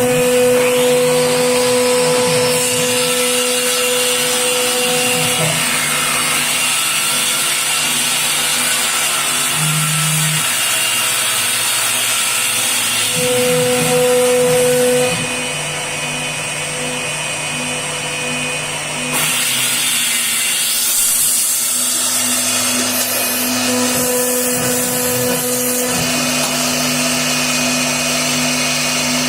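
CNC router cutting an MDF sheet: a steady spindle whine with a lower hum from the axis motors that shifts in pitch as the machine moves, easing off a little about halfway through and then picking up again.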